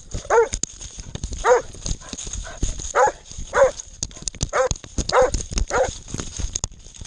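Hunting dog barking repeatedly, about seven short barks spaced unevenly, over rustling and sharp knocks from the dog moving through brush.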